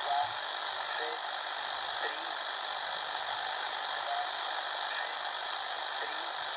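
Shortwave static hissing steadily from an XHDATA D-808 portable radio's speaker tuned in upper sideband, with a few faint short whistles in the noise. This is the gap between voice passages of a number station.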